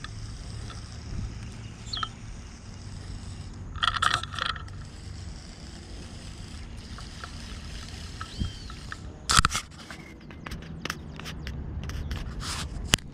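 Wind rumbling on the microphone, with two short loud scuffs about four and nine seconds in, then a run of irregular clicks and knocks from handling the rod and Daiwa Tatula baitcasting reel.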